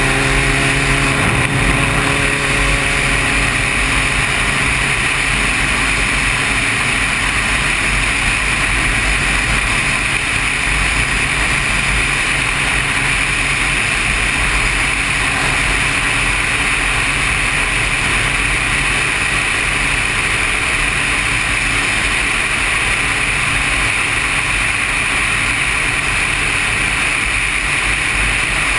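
Steady wind rush on the camera's microphone from a motorcycle cruising at highway speed, with the bike's engine running underneath. The engine note is clearest in the first couple of seconds, then is mostly covered by the wind.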